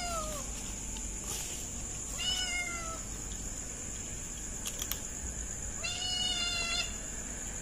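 Kittens meowing: a meow that falls away right at the start, then two more, each about a second long, about two and six seconds in.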